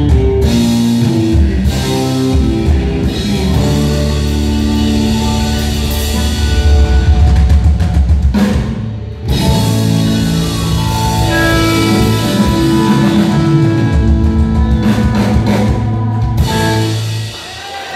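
Live band playing rock music on electric guitar, electric bass guitar and drums. The sound drops away for a moment about nine seconds in, then the band comes back in.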